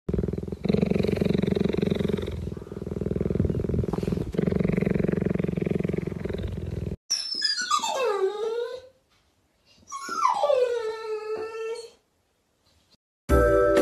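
A cheetah purring in a steady low rumble that swells and eases every couple of seconds. It cuts off, and then a dog gives two long whining calls, each sliding down in pitch. Music starts near the end.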